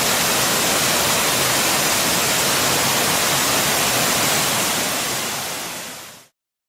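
Waterfall: a steady, dense rush of falling water that fades out about four and a half seconds in and goes silent about a second and a half later.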